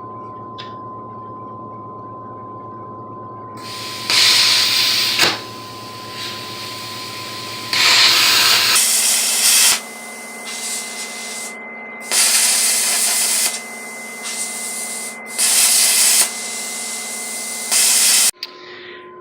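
An electric power cutting tool's motor whining steadily, with five loud hissing stretches as it cuts into steel bed-frame angle iron. The whine's pitch shifts about halfway through.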